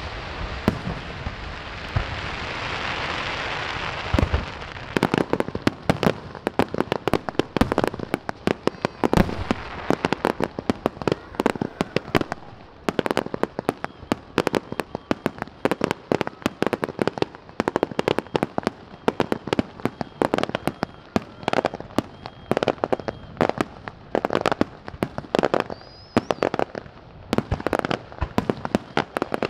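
Aerial fireworks display. It opens with a few seconds of steady hissing crackle, then breaks into a dense barrage of sharp bangs, pops and crackles, many a second.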